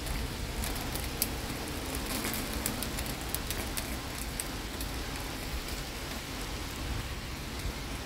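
Rain falling steadily, with many sharp drop ticks on nearby surfaces over a low rumble.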